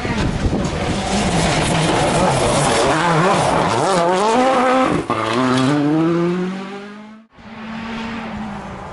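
Rally car engine at full throttle, its pitch climbing and dropping through several gear changes as the car slides past on loose gravel, tyres scrabbling. Near the end the sound cuts off abruptly and a fainter, steady engine note of another rally car follows from the distance.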